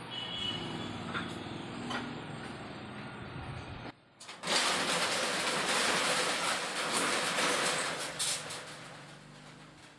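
Low shop background noise, then after a brief drop a metal roller shutter is pulled down with a loud rattle for about four seconds, fading away near the end as the shop goes dark.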